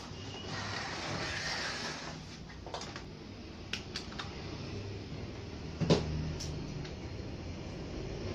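Light handling clicks and one sharper knock about six seconds in, over a steady low hum and room noise.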